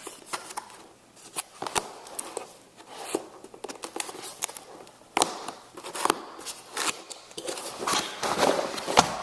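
A cardboard keyboard box being opened by hand: flaps and packing being pulled and rustled, with scattered clicks, knocks and scrapes.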